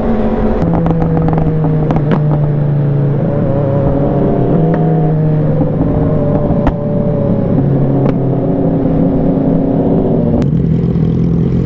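Yamaha R1 inline-four engine running under load at road speed, heard from the bike with wind rushing past. Its pitch steps down and back up a few times with throttle and gear changes, and about ten seconds in the throttle closes and the note drops as the bike slows.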